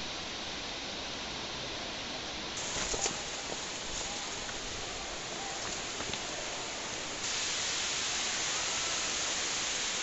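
Steady rushing of a waterfall's falling water, heard as an even hiss that turns suddenly louder about seven seconds in. There are a few faint knocks about three seconds in.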